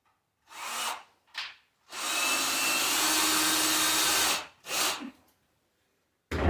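Power drill running in one steady burst of about two and a half seconds, with shorter bursts before and after it and a loud thump near the end.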